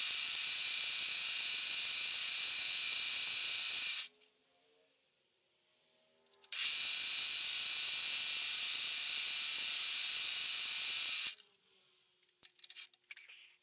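Milling machine spindle running with a drill bit cutting a hole into a casting: two steady, high whining stretches of about four and five seconds, with a short quiet gap between them.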